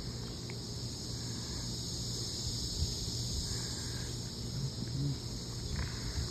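Chorus of insects buzzing in a steady, even high-pitched drone, with a low rumble underneath.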